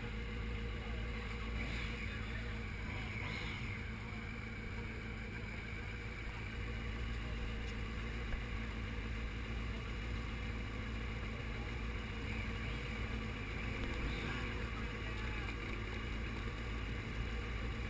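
Motorcycle engine idling steadily, a low even drone.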